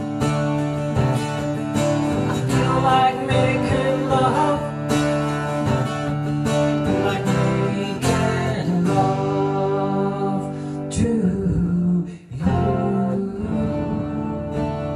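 A 12-string acoustic guitar strummed in steady chords, breaking off briefly just past twelve seconds before the strumming resumes.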